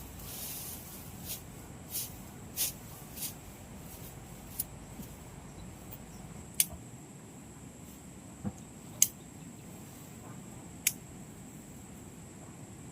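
Irregular short sharp clicks and scrapes, about a dozen, heard over a steady high-pitched insect drone.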